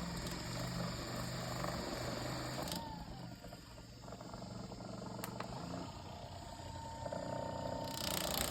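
Ekrin B37 percussion massage gun running: a low motor hum and buzz whose pitch shifts a few times.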